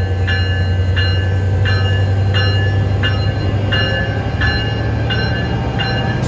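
A railroad bell ringing steadily, about one and a half strokes a second, each stroke struck sharply and fading, over the steady low rumble of a diesel train.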